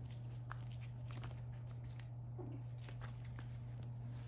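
Faint scattered soft clicks and rustling from small puppies moving about and mouthing toys on a blanket, over a steady low hum.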